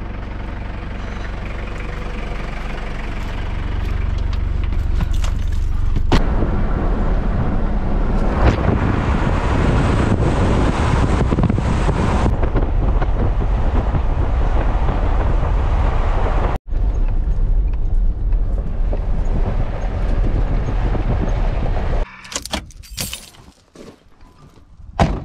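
Ute driving along a road: steady engine and tyre noise. About 22 seconds in it drops away to a few short knocks and clatters.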